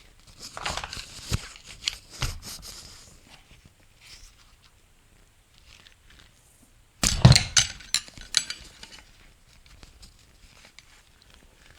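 Flathead screwdriver prying and scraping against the steel clutch drum of a 2002 Honda Odyssey automatic transmission, with scattered metal clicks and scrapes, then a loud clatter of metal knocks about seven seconds in.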